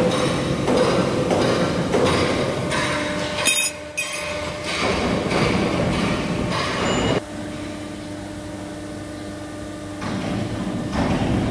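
Hydraulic CNC press brake running, its motor and hydraulic pump humming as the ram strokes down to bend a steel plate, with a sharp metallic clank about three and a half seconds in. After about seven seconds the noise drops to a quieter, steadier hum, then rises again near the end.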